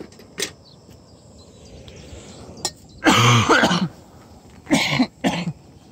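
A man's voice in short unworded bursts: one loud bout about three seconds in and two shorter ones near the end.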